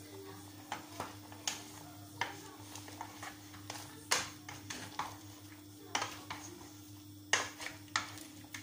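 Wooden spoon stirring boiled meat in a stainless steel pot, knocking and scraping against the pot's side in irregular short knocks, about one or two a second, over a low steady hum.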